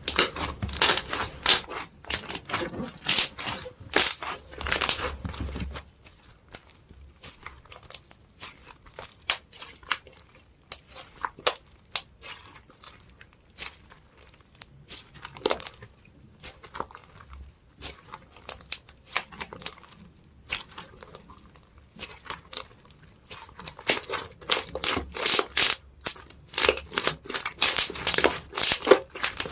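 Tacky slime being pressed and pulled by hand, making sticky crackling and tearing clicks. The clicks come thick for the first few seconds, thin out to sparse quiet pops through the middle, and grow dense again near the end.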